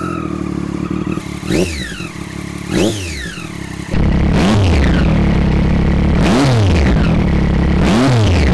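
2013 Triumph Daytona 675R's inline-three engine revving through an Austin Racing V3 titanium end can with its baffle removed: five quick throttle blips, each rising and falling in pitch, with idle between them. It gets markedly louder about four seconds in.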